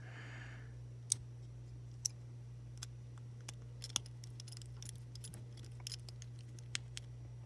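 Scattered small sharp clicks and taps of a plastic Beyblade Burst string launcher and small screws being handled and screwed together, the loudest about one and two seconds in, over a low steady hum.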